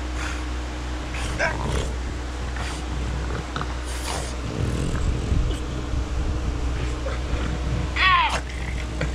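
French bulldog growling as it tussles with a person under a comforter, over the rustle of bedding. About eight seconds in comes the loudest sound, a short whine falling sharply in pitch.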